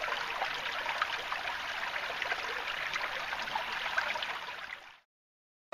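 Shallow creek trickling and babbling over rocks, a steady watery rush, fading out about five seconds in.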